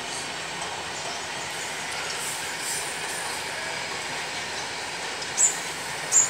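Freight train of loaded flatcars rolling past with a steady rumble of wheels on rails, and two short, high-pitched wheel squeals near the end, under a second apart.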